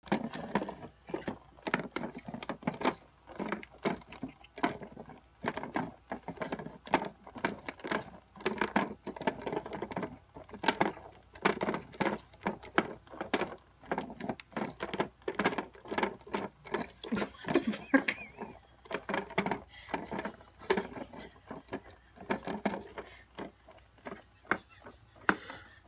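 Red plastic dome cat toy clicking and rattling irregularly, several knocks a second, as the cats paw at it and the feathered lure moves round inside.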